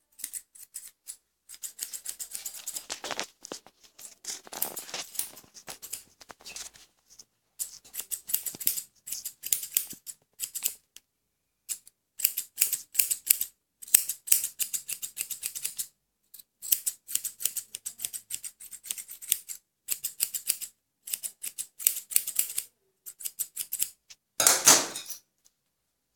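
Straight steel grooming shears snipping through a dog's leg hair in runs of quick cuts with short pauses between. About a second and a half before the end comes one louder, longer rustle.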